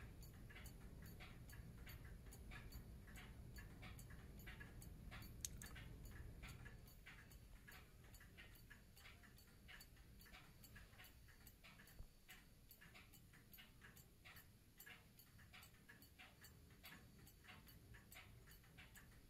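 French clock's recoil escapement ticking: the steel pallets strike the brass escape wheel in a faint, rapid, even rhythm, with one sharper click about five seconds in. The pallet faces have freshly polished out their wear grooves, and the escapement runs without any eccentric adjustment.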